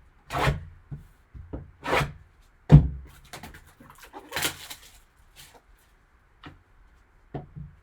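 A sealed trading-card box being handled: a few short rustles and scrapes of packaging, with one sharper knock about three seconds in, then light taps and clicks.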